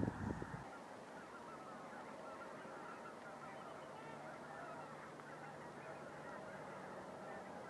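A large flock of snow geese calling continuously: a dense chorus of many overlapping honks and yelps, heard at a distance. A brief low rumble at the very start is the loudest moment.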